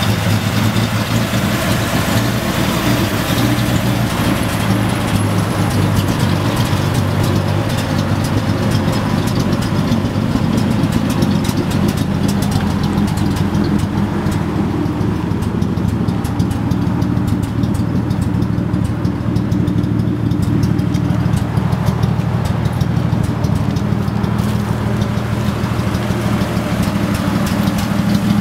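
1953 Chevrolet truck's engine idling steadily.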